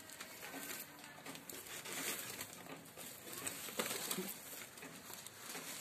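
Scuffling and rustling of a German shepherd and its puppies moving on loose rubble and debris, with a few soft, high puppy squeaks near the start.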